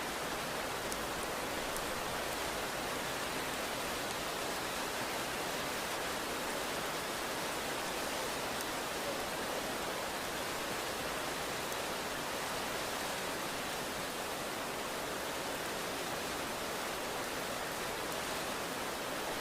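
Steady rain, an even, unbroken hiss with no thunder.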